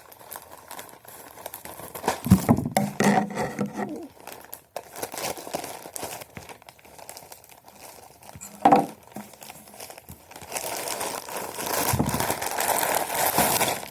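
Packaging crinkling and rustling as it is cut and torn open by hand. There are sharper bursts of handling noise about two to three seconds in and again near nine seconds, and steadier rustling near the end.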